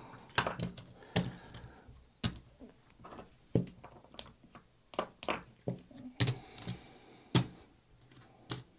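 Casino chips clicking together in irregular sharp clacks as they are taken from a chip rack and stacked out as bets.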